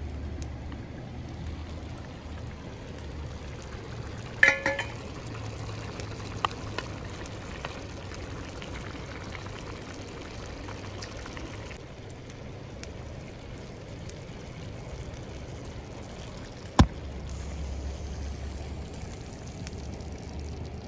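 A metal pot lid clanks and rings briefly about four and a half seconds in, and a single sharp knock comes near the end, over a steady watery trickling and bubbling background.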